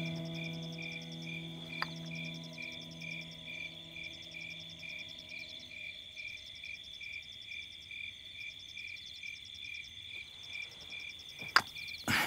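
Night chorus of frogs and insects: a steady high chirring with a pulsing call about four times a second. Soft held notes of background music sound under it for the first half, and a couple of sharp clicks come near the end.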